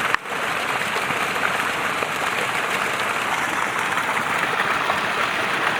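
Steady rushing noise, even and unbroken, with a brief dip just after the start.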